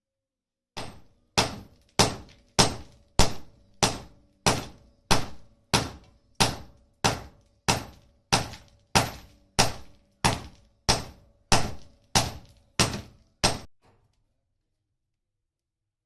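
Hammer forging steel, about twenty evenly paced blows, roughly one every 0.6 seconds. Each blow has a short metallic ring. The blows stop near the end.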